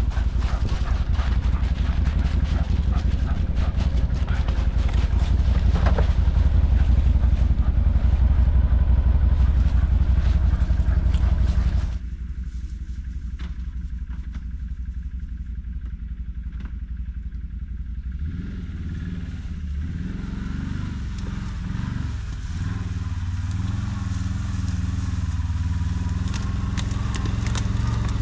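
ATV engine running, heard close up with rattling and clatter. About twelve seconds in it cuts to a quieter, distant engine that grows steadily louder as an ATV approaches.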